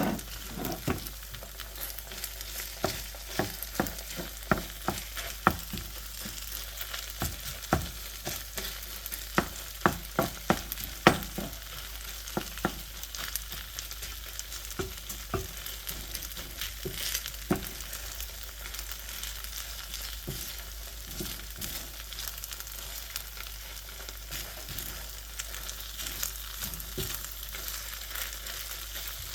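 Fried rice sizzling in a frying pan with leftover tteokbokki sauce, stirred with a utensil that knocks and scrapes against the pan. The knocks come thick and fast through the first half and thin out later, under a steady sizzle.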